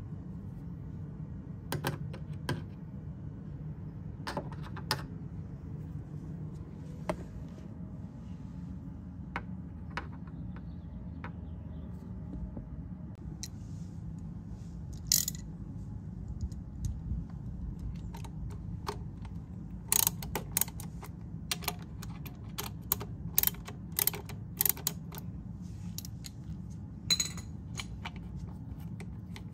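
Sharp metallic clicks and taps from hand tools and small bolts being handled on a scooter's final drive case. They are scattered at first and come thick and fast in the second half, over a steady low hum.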